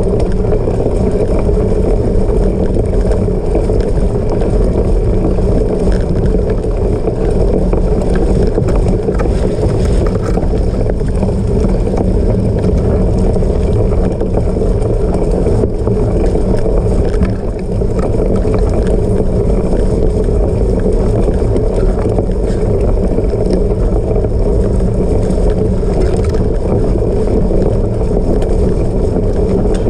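Steady loud rumble of wind on the microphone and tyres on rough ground while riding a cyclocross bike off-road.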